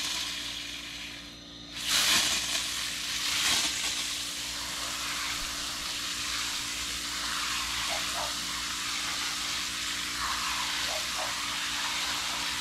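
Garden hose watering wand spraying a steady shower of water onto the potting soil in a nursery pot, soaking it down (watering in newly potted rootstock). The hiss dips briefly about a second in, then runs strong again.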